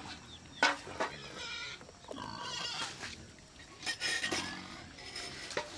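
An animal calling a few times, with several sharp clicks.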